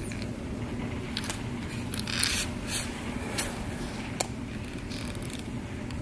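Starlings at a hanging seed feeder: several short scratchy sounds, with a cluster about two seconds in, over a steady low rumble.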